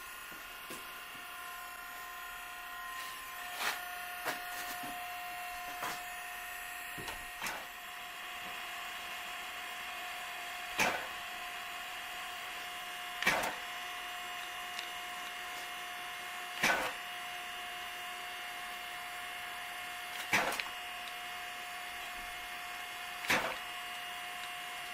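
A machine running with a steady hum and whine, struck by a sharp clack about every three seconds.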